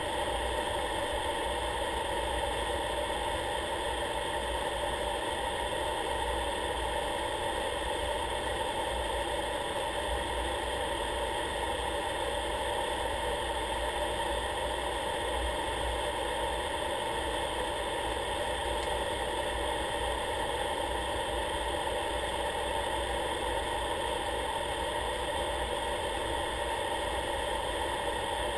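Steady drone of an aircraft in flight, engine and rushing air together, holding the same pitch and level with no change.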